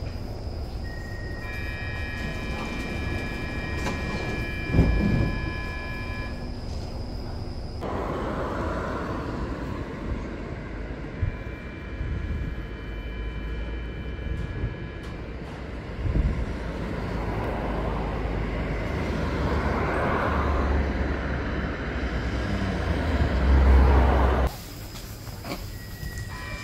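Stockholm metro trains at station platforms: an electronic door-closing warning tone of several steady pitches, a sharp knock as the doors shut, then a second train's two-tone door-closing signal. A low rumble builds near the end as a train gets moving, and cuts off suddenly.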